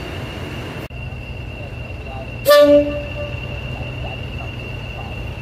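Class 40 diesel locomotive D213 sounds its horn once, a short two-tone blast about halfway through. Under it runs a steady low engine hum and a steady high whistle.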